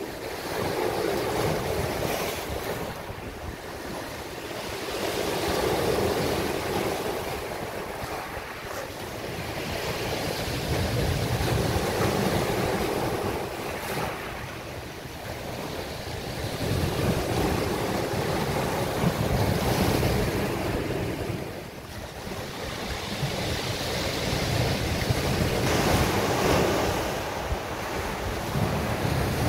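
Mediterranean waves breaking and washing up a beach. The surf swells and eases every five or six seconds.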